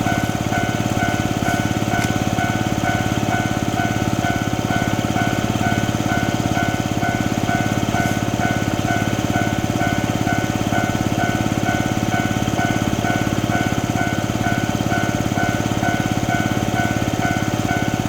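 Japanese railway level-crossing alarm ringing its electronic "kan-kan" bell in a fast, even rhythm, over a steady low rumble.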